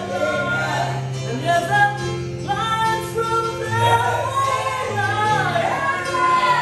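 Men's gospel vocal group singing, the lead voice carrying the melody over instrumental accompaniment with steady held bass notes.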